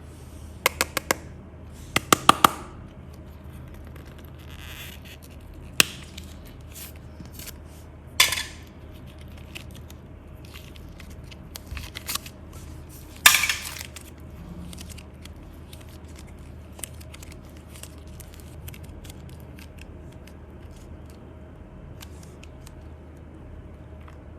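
Scattered sharp clicks, clinks and short scrapes from small hard objects being handled: a quick run of three clicks at the start, a cluster about two seconds in, then single clicks and scrapes every few seconds, the loudest about thirteen seconds in.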